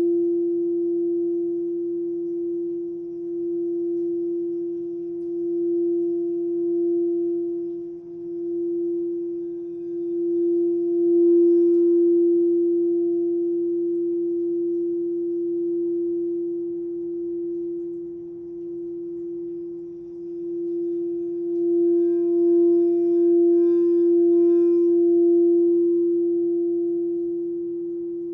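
White crystal singing bowl played with a mallet, sounding one steady ringing tone with faint higher overtones that swells and dips in loudness and fades near the end.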